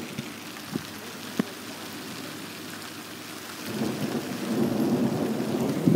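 Thunderstorm: steady rain hiss with a couple of sharp drip ticks, then a low rumble of thunder swells in about two-thirds of the way through and grows louder.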